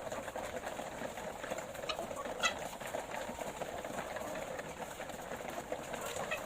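A flock of laying hens clucking and murmuring steadily, with a short, sharper call about two and a half seconds in.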